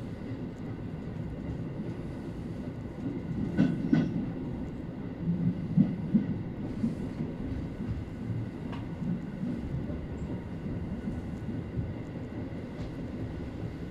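Tobu 850 series electric train running, heard from inside the front car: steady low running noise, with a few wheel knocks over rail joints around four and six seconds in.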